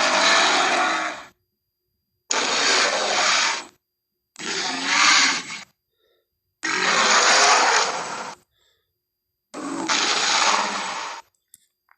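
A string of monster roar and growl sound effects for a Minotaur creature: five harsh, rough calls, each one to two seconds long, cut apart by short stretches of dead silence.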